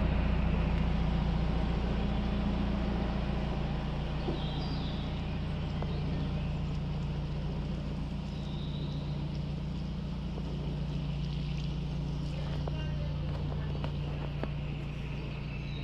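Narrowboat's diesel engine running steadily at low revs while the boat cruises along the canal, a low even drone that grows gradually quieter.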